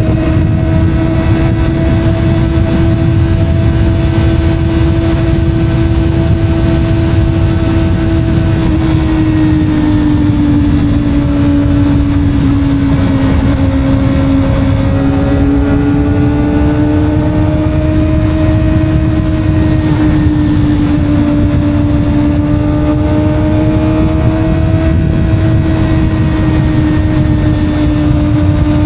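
250 cc Kawasaki sport motorcycle engine pulling steadily at speed, its pitch easing down a little about halfway through and climbing back, over a constant rush of wind and road noise.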